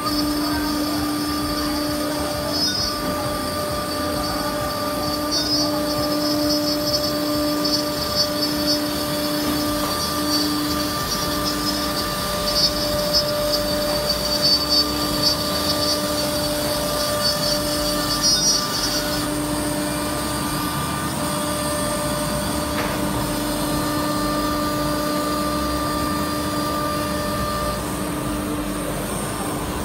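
Spindle of a SEMAC SM-1325R1B CNC router running at a steady high whine while it routes grooves in a melamine-faced panel. For about the first two-thirds a higher, fluttering cutting noise rides on top, then stops about 19 seconds in.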